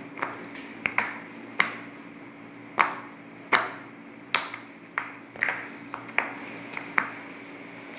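Silicone pop-it fidget toy being pressed bubble by bubble. It makes a dozen or more short, sharp pops at uneven intervals, some of them in quick runs.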